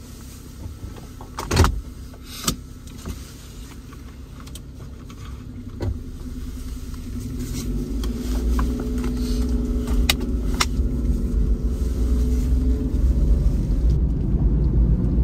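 A car getting under way: a few sharp clicks and knocks in the first seconds, then engine and road noise that rises in pitch and grows louder before settling into a steady drone.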